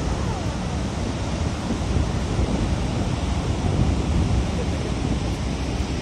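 Steady rushing noise of a large waterfall's falling water, with wind buffeting the microphone.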